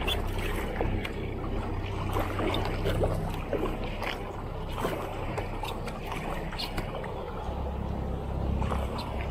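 A motorboat's engine runs in a steady low hum close by. Water rushes in its wake, broken by irregular splashes from kayak paddle strokes.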